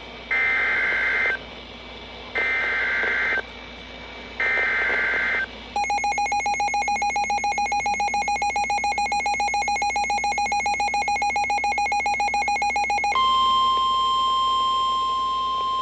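Emergency Alert System warning signal: three short bursts of the SAME digital header's data screech, then about seven seconds of a fast-pulsing electronic alert beep, then a steady single-pitch attention tone that cuts off just before the warning message.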